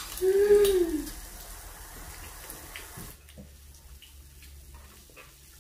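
Meat sizzling on an electric tabletop grill plate, a steady hiss that turns much quieter about three seconds in. A short hummed vocal sound at the start.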